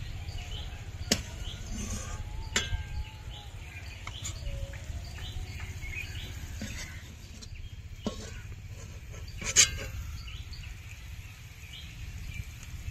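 Steel spatula clinking and scraping against a steel kadai and bowl as cooked fish is served out, a few sharp metal clinks with the loudest about three-quarters of the way through. Small birds chirp repeatedly behind it.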